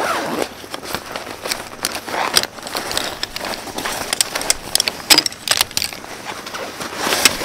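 Zipper of a Helinox nylon stuff sack pulled open with a rising zip, then the nylon rustling and the folded poles of a Helinox camp chair frame clicking and rattling against each other as it is pulled out.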